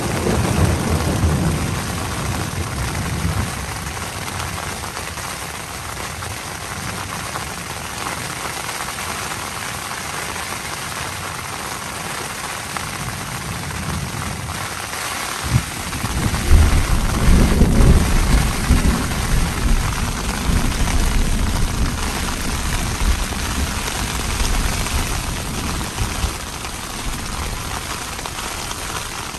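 Steady rain hissing down, with thunder rumbling low at the start and a sharper crack about halfway through that rolls on for several seconds as the loudest part.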